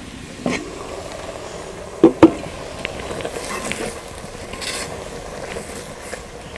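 Spinach sizzling and being stirred with a spatula in a hot clay pot, with scrapes and small ticks throughout. A clay lid comes off with a knock about half a second in and two sharp knocks around two seconds in, the loudest sounds.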